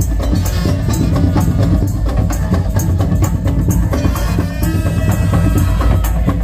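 Madurese tong-tong music: a loud street percussion ensemble of wooden slit drums and big bass drums playing a dense, driving rhythm, with a pitched melody line over the beat.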